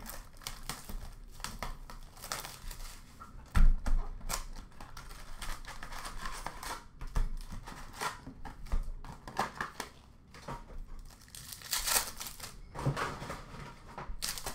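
Upper Deck hockey card retail box being opened and its foil card packs handled, with cardboard and foil wrappers crinkling and tearing. One dull thump comes about three and a half seconds in, and a long tear of a wrapper near the end.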